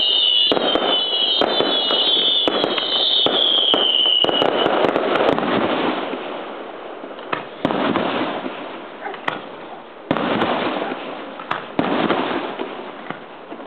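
Aerial fireworks display: shells bursting over a dense run of crackles and bangs, with a series of falling whistles in the first four seconds. After that come separate booms about halfway through, then twice more near the end, each trailing off.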